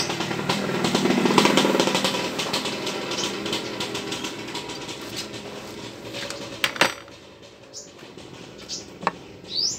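Honda XRM110's single-cylinder four-stroke engine turned over on the kick-starter with the spark plug removed, so it spins freely without compression: a fast mechanical clatter that tapers off, ending in a sharp click about seven seconds in.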